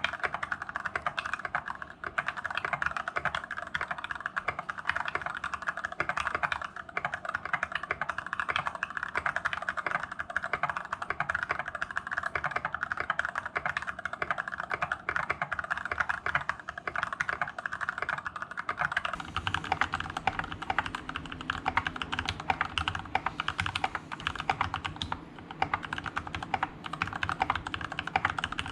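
Continuous fast typing on a GK61X mechanical keyboard fitted with lubed Gateron Yellow linear switches, a dense stream of keystroke clacks. About two-thirds of the way through, the keystrokes take on a deeper tone.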